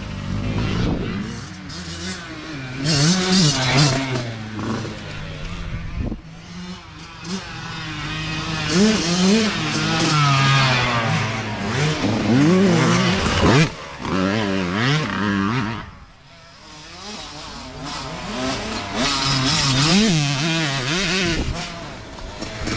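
Youth dirt bike engines revving, their pitch climbing and falling over and over with throttle and gear changes as riders pass. The sound fades about sixteen seconds in, then builds again as another bike approaches.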